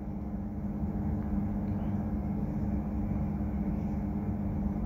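Electric drill with a paddle mixer running at a steady hum, stirring cement grout and water in a bucket.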